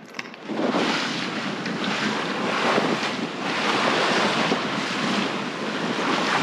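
Rushing wind on the microphone mixed with sea water washing, rising sharply about half a second in and surging unevenly after that.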